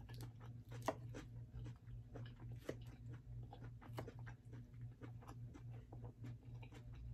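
Close-up chewing of crisp leafy salad, heard as a run of short crunches and wet mouth clicks over a steady low hum.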